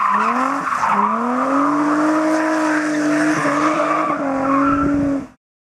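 Infiniti G35 sedan's VQ35DE V6 revving hard while its tyres squeal. The engine note dips twice in the first second, climbs and then holds, and the sound cuts off suddenly near the end.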